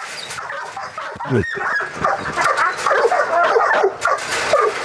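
Caged pitbull-cross dogs barking and yelping in a dense, overlapping tangle of short calls, with sharp knocks and rattles against the metal cage.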